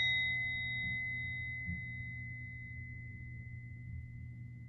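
Small hand-held brass singing bowl ringing out from a single tap of its striker: one clear, steady tone that slowly fades, its higher overtones dying away in the first few seconds while the main tone lingers.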